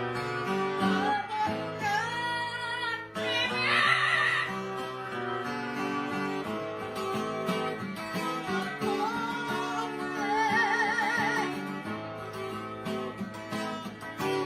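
Music: a plucked acoustic guitar with a high singing voice that wavers in vibrato.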